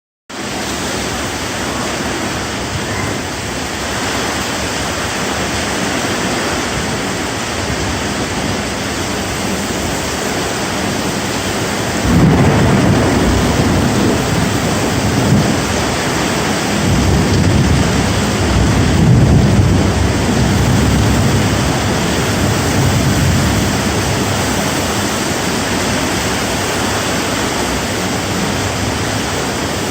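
Heavy rain falling steadily in a thunderstorm. Thunder rumbles in suddenly about twelve seconds in and rolls again a few seconds later.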